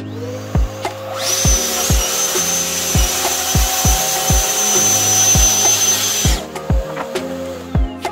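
Festool plunge-cut track saw spinning up, then cutting through a plywood panel along its guide rail for about five seconds. It then runs free briefly and winds down near the end. Background music with a steady drum beat plays throughout.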